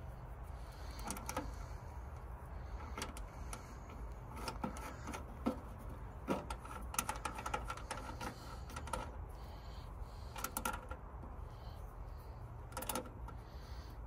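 Irregular light clicks and taps of ring terminals and terminal nuts being fitted by hand onto a diesel heater's power posts, with a quicker run of ticks around the middle, over a steady low rumble.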